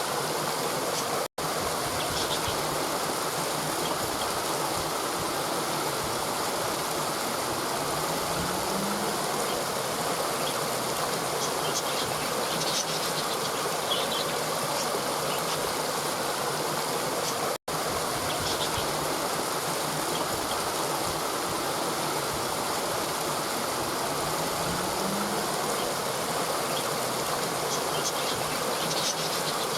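Steady rush of a river flowing over rocks, as a looped recording; the sound cuts out for an instant about a second in and again past the halfway point, where the loop restarts.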